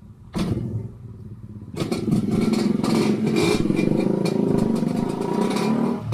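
Yamaha RX-King two-stroke motorcycle engine with an aftermarket underbelly exhaust: a short burst about half a second in, then from about two seconds in it runs loudly with a fast, rough pulsing. The owner puts the exhaust's odd sound down to a wrongly set header pipe.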